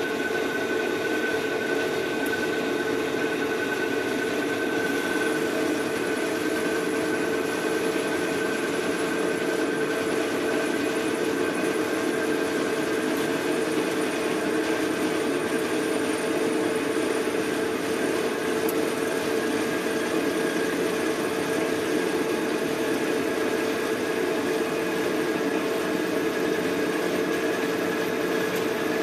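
Metal lathe running steadily while its cutting tool turns down a phosphor bronze bar: an even machine hum with a steady, higher tone held over it.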